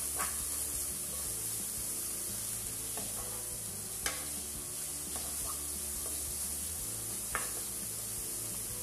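Grated carrot, onion and garlic sizzling in butter in a frying pan, stirred with a wooden spoon while the carrot softens. The spoon knocks against the pan a few times, loudest about four seconds in.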